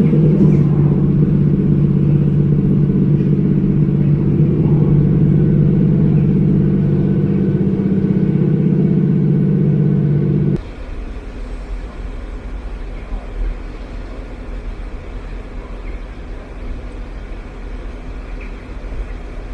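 A train's diesel engine running loud and steady. It cuts off suddenly about ten seconds in, leaving the quieter low rumble of the moving train.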